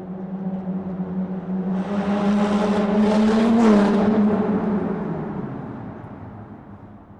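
Car in a tunnel: a steady engine hum joined by a swelling rush of tyre and air noise, loudest about three and a half seconds in, then the pitch drops slightly as it passes and the sound fades away.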